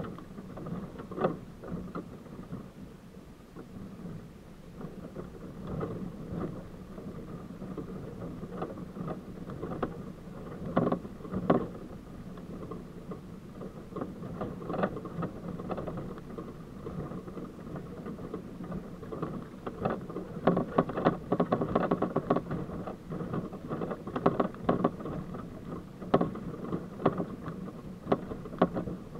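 Jeep YJ crawling up a rough rocky trail: the engine runs steadily under a constant drone, with frequent knocks and rattles as the tyres and body jolt over rocks, sharpest about a second in and around eleven seconds, and busiest in the second half.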